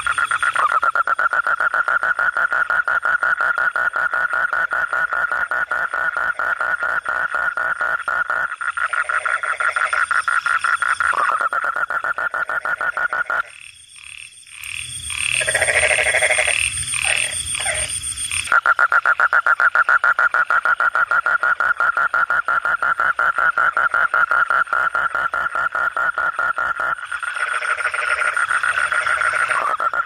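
Asian common toad giving its long, rapid pulsed trill at a steady pitch, the male's call for a mate. The trill breaks off about halfway through for a few seconds, filled by a brief irregular rustling sound, and then resumes.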